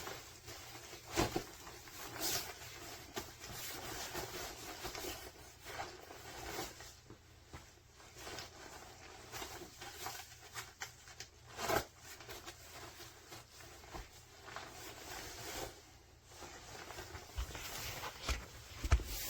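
Irregular rustling and brushing of a ski jacket's nylon shell fabric being handled and moved, with scattered short clicks and scrapes.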